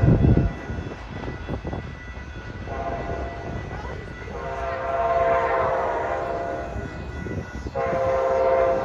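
Horn of an approaching commuter train sounding a multi-tone chord in three blasts, the middle one longest, over the rumble of the train. A brief loud thump comes right at the start.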